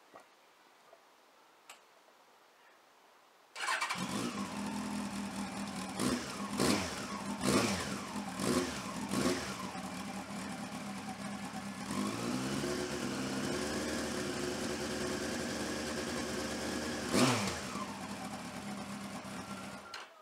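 Yamaha FZS1000 Fazer's inline-four engine through a Beowulf aftermarket silencer with its baffle fitted: it starts about three and a half seconds in, is blipped five times in quick succession, then idles. It is revved once more near the end and switched off just before the end.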